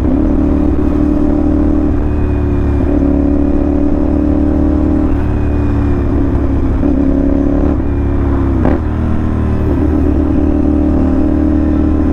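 CFMoto NK450's 270-degree parallel-twin engine running through a loud aftermarket SC Project-style short slip-on exhaust, with a deep, hard big-bike tone under way. Its pitch dips and recovers several times as the throttle is eased and reopened.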